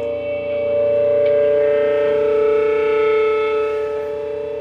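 Electric guitars through distortion, holding one long droning note that opens a song. It swells about a second in and eases off slightly near the end.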